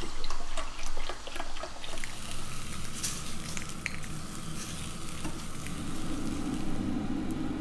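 Bacon rashers frying in a pan, a steady sizzle with scattered crackles that are busiest in the first few seconds.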